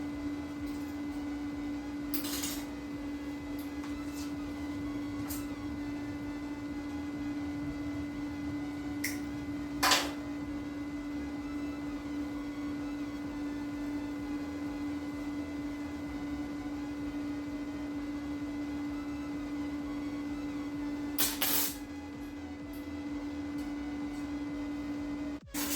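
Flux-core MIG welding on thin sheet metal: a few short bursts of arc crackle, brief tack welds, about two seconds in, about ten seconds in and around twenty seconds in, over a steady hum.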